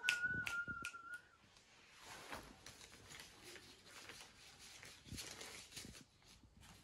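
A short whistled note held for about a second, with a few finger snaps, then soft rustling of paper banknotes being counted by hand and laid down.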